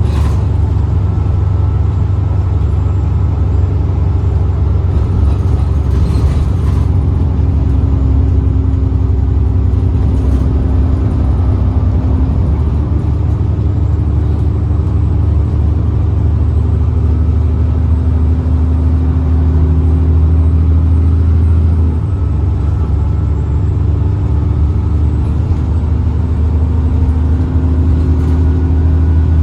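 Diesel engine of an ADL Enviro 400 double-decker bus running under way: a steady low drone whose note rises and falls with engine speed, dipping briefly about two-thirds through. A faint high turbo whistle sits above it.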